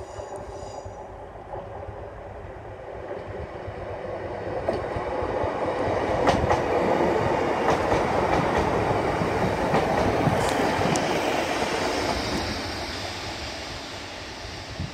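East Midlands Railway diesel multiple unit passing close by, growing louder as it approaches and fading as it goes, with sharp wheel clicks over the rail joints as it passes.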